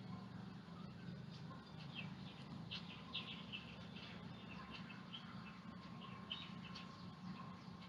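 Faint, short bird chirps repeating irregularly over a steady low hum.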